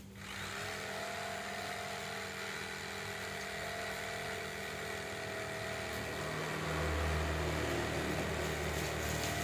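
Reaim electric jigsaw with a fairly blunt blade cutting a curve through a wooden board. The motor speeds up just after the start, then runs steadily, with a deeper hum coming in about two-thirds of the way through.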